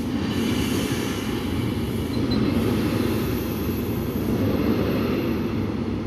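Container wagons of a freight train rolling past: a steady rumble of steel wheels on the rails.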